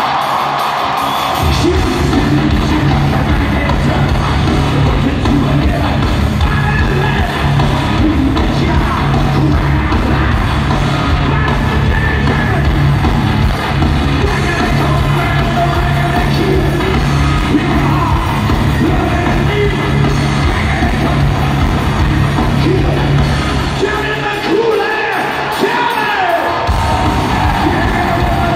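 Live heavy metal band playing loud through an arena PA, with yelled vocals over the band, heard from the crowd. The low end drops out for a couple of seconds near the end, then comes back in.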